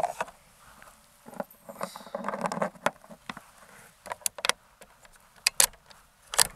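Sharp metallic clicks and clacks from handling the Umarex Hammer .50 cal airgun at the bench, likely loading or working the action. A soft rustle of handling comes first, then about five crisp clicks over the last two and a half seconds, the loudest two close together about five and a half seconds in.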